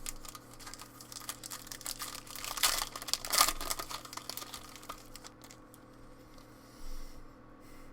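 Foil trading-card pack wrapper crinkling and tearing, with cards handled in rapid small clicks, loudest about three seconds in, then quieter for the last couple of seconds.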